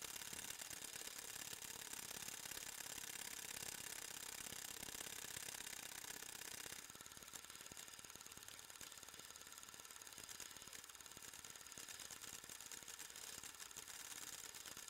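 Quiet, steady whirr and fast fine clicking of an 8mm movie film mechanism running. About seven seconds in, the higher part of the sound drops away and the quieter whirr carries on.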